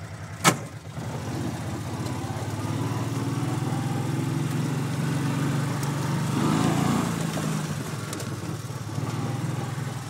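A 4x4's engine pulling as the vehicle accelerates across dirt. It builds in loudness from about a second in, rises slightly in pitch to a peak around seven seconds, then eases off. A single sharp click comes about half a second in.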